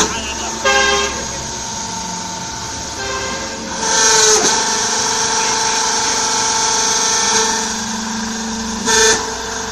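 Interlocking clay brick making machine running, its hydraulic pump giving a steady whine of several held tones. The whine swells briefly about four seconds in, then drops with a short falling glide, and swells again briefly near the end as the press cycles.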